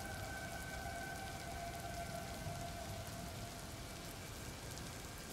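Steady rain falling, an even hiss of drops. A faint held tone sits underneath and fades out about four seconds in.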